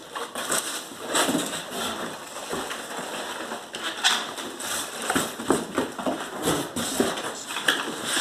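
Cardboard being handled and rummaged through in a shipping box full of foam packing peanuts: irregular rustling, scraping and crinkling with sharp knocks of cardboard flaps.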